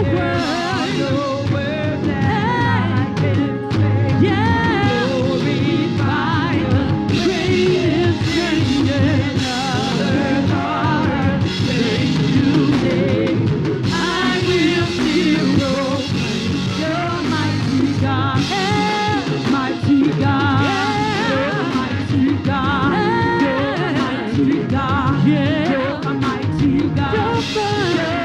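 Live gospel worship band with singers, the drum kit driving a groove on the toms, which wear freshly replaced Evans heads.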